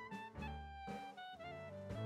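Jazzy background music: a horn melody stepping down in pitch over a bass line and light drum hits.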